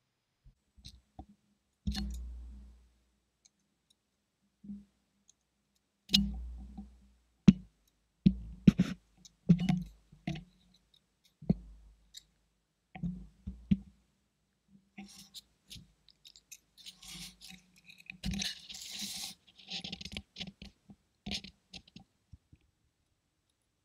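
Irregular knocks, clicks and scrapes close to a GoPro as a dog forages on the floor, several with a deep thump, and a short stretch of scratchy hissing about 18 seconds in.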